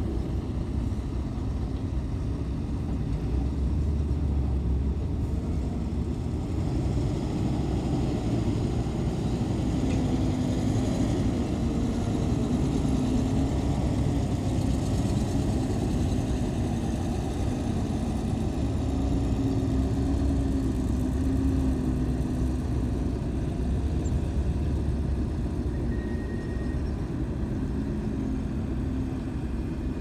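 Diesel engine of heavy earthmoving equipment running steadily at work, its low drone shifting slightly in pitch now and then.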